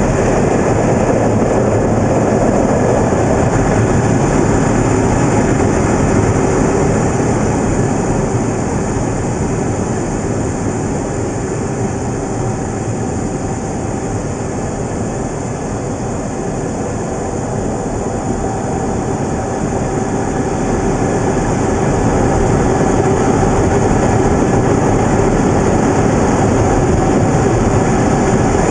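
Steady, loud roar of aircraft-carrier flight-deck operations, with a few steady tones running through it. It eases a little about halfway through and builds back near the end.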